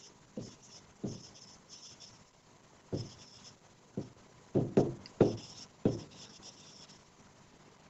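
Pen strokes and taps of a stylus writing on an interactive smart board: a string of short, separate contacts with gaps between them, most of them from about three seconds in onward.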